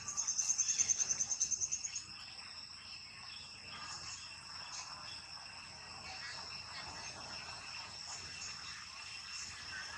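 Insects droning steadily at a high pitch. For the first two seconds a louder, rapid pulsing trill of about ten pulses a second stands out over the drone.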